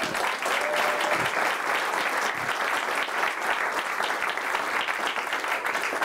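Audience applauding steadily.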